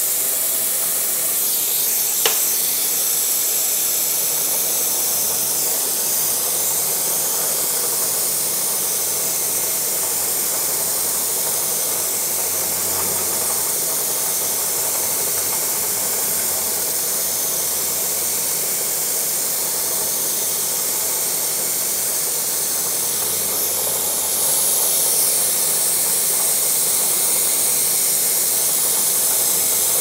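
Mist coolant unit hissing steadily as it sprays the cut, over a Bridgeport milling machine running with its end mill cutting a slot in a metal coupling flange. A sharp click about two seconds in, and a little louder from about three-quarters of the way through.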